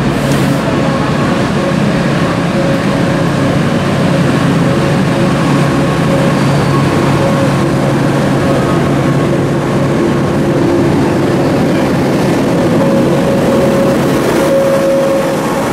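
OSE class 220 diesel-electric locomotive arriving slowly and passing close by, its diesel engine running with a steady low hum. Its coaches then roll past on the rails.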